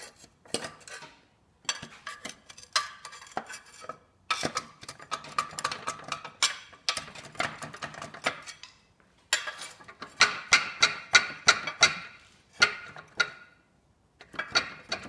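Repeated metallic clanks and knocks from a 1982 Mercury 50 hp outboard's gear case being worked against its stuck joint. The gear case shifts a little but won't come free. The clanks come in clusters with short pauses and are loudest about two-thirds of the way through.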